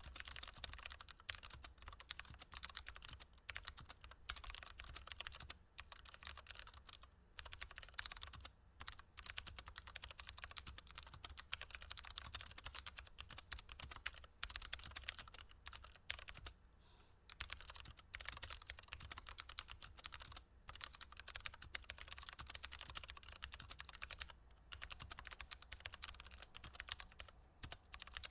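Fast, continuous typing on a mechanical keyboard, a dense run of bright key clicks with a few short pauses, the highs emphasised. A faint steady low hum lies underneath.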